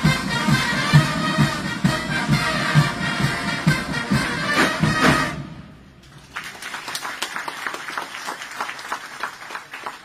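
Military band playing a march with a steady bass drum beat about two a second, which stops about five seconds in. Scattered clapping follows.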